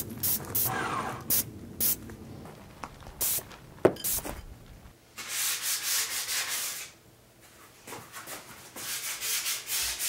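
Short hissing bursts of Rust-Oleum primer sprayed from an aerosol can with a trigger grip, followed by hand sanding of the white-primed aluminium bike frame: the abrasive pad rasping back and forth along the tubes in strokes.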